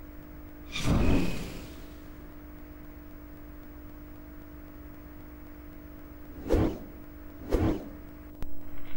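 Dramatic whoosh sound effects over a steady low hum: one longer swish about a second in, then two sharper whooshes about a second apart near the end.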